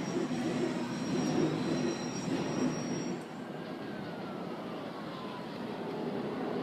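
New York City Subway train on the elevated Liberty Avenue Line, its wheels and motors running loudly with a high squeal. It gets quieter about three seconds in as the train moves off, leaving a rumble and a falling whine.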